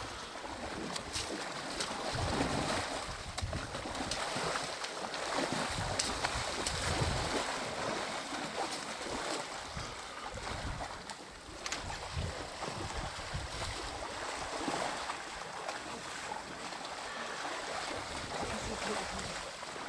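Water splashing and sloshing as an elephant calf wallows and wades in a shallow muddy waterhole.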